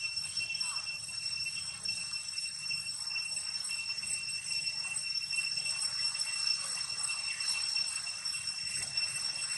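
Steady high-pitched drone of insects: one unbroken whine with fainter overtones above it that holds unchanged throughout.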